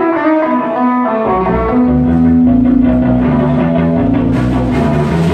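Live rock band intro: an electric guitar plays a riff, a bass guitar comes in about a second in, and the drum kit and cymbals join near the end.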